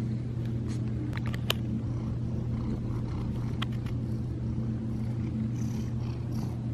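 Domestic cat purring close up, a steady low rumble, with a few light clicks over it.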